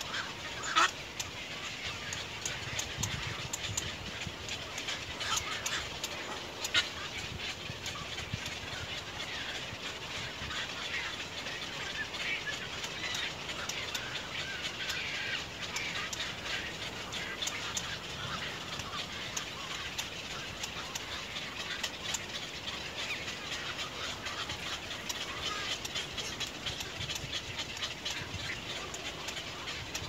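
Birds calling and chirping without a break, a busy chatter of short high calls, with two sharp clicks, one about a second in and one near seven seconds.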